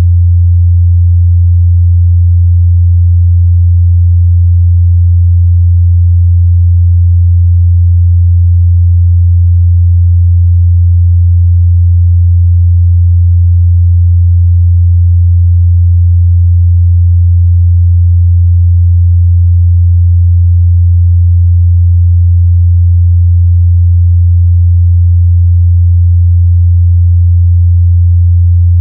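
A continuous 87 Hz sine test tone, one steady low hum that holds a constant pitch and level throughout.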